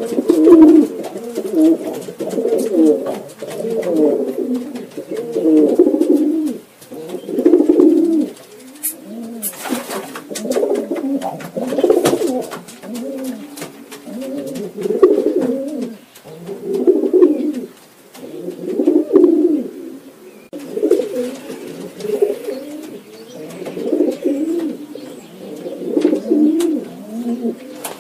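A flock of domestic pigeons cooing, many low coos overlapping and swelling every second or two.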